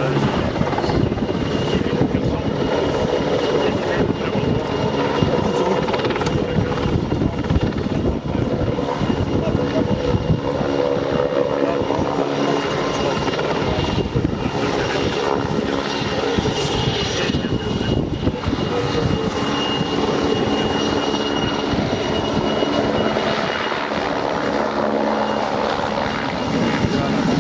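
PZL W-3A Sokol twin-turboshaft helicopter hovering and manoeuvring low: steady rotor chop with a continuous high turbine whine.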